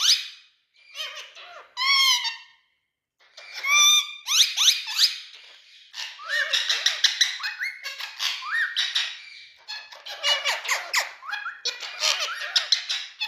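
Green parrot calling: loud, high-pitched squawks and screeches in bursts, each with quick rising and falling sweeps in pitch. About halfway through, the calls turn into a long run of rapid, repeated chattering screeches.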